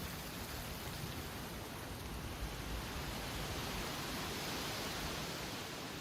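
Strong wind blowing: a steady rushing noise that swells about four to five seconds in, with an unsteady low rumble of wind buffeting the microphone.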